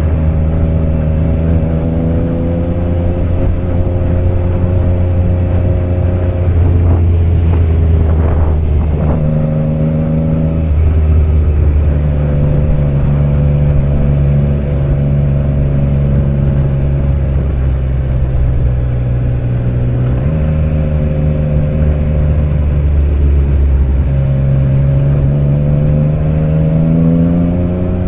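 Triumph Trident 660's three-cylinder engine running under way. Its note holds steady for long stretches, steps down and up a few times, and rises near the end.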